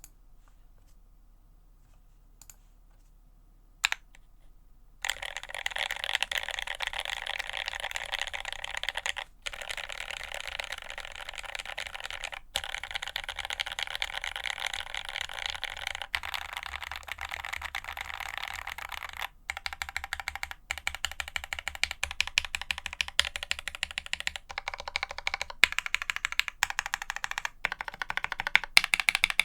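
Rapid, continuous key-mashing on a Quasi Alice mechanical keyboard with Marshmallow switches and GMK Godspeed ABS keycaps. It starts about five seconds in, after a couple of single key clicks, and breaks off briefly three times.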